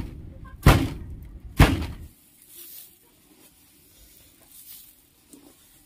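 Wooden pestle pounding finger millet in a wooden mortar to loosen the grain from its stalks and husk: two loud thuds about a second apart in the first two seconds.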